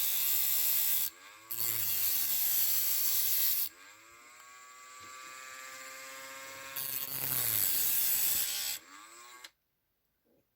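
Dremel rotary tool with a cut-off wheel grinding through a diecast toy car's metal axle: a high, gritty grinding in three loud spells, the motor's whine dropping and rising in pitch as the wheel bites and frees up. Between the spells the tool spins more quietly, and it stops near the end.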